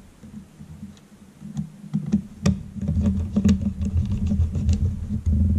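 Small screws being driven into a mini PC's bottom lid with a precision screwdriver: a run of small irregular clicks and ticks, starting about a second and a half in, over a low rumble.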